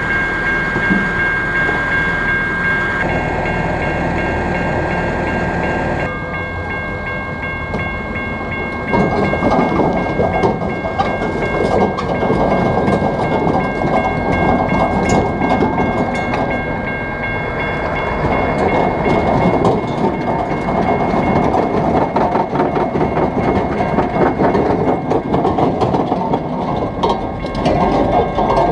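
Double-stack intermodal freight train rolling slowly past close by: the steady rumble of container cars with wheels clacking over rail joints, and a steady high tone over the first part.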